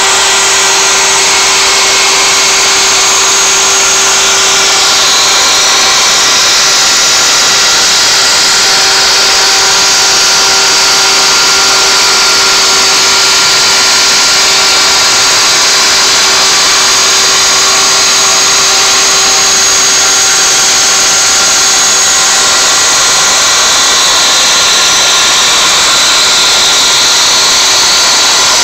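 CNC router spindle spinning a 1/8-inch solid carbide up-shear spiral bit at 24,000 rpm and cutting into knotty alder. It makes a loud, steady hum and whine over the hiss of the bit chipping the wood, with no stops.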